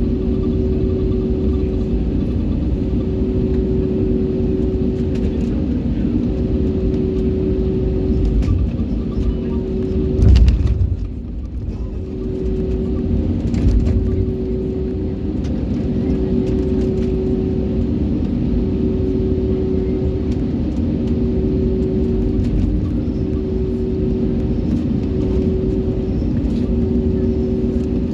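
Airliner cabin noise: a steady low rumble from the engines and airframe with a humming tone that keeps cutting in and out. About ten seconds in there is a single loud thump, like the wheels going over a bump.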